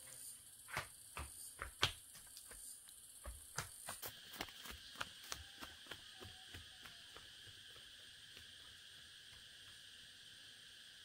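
Quick running footsteps on a dirt path, evenly spaced and growing fainter until they die away about seven seconds in, over a steady high drone of insects.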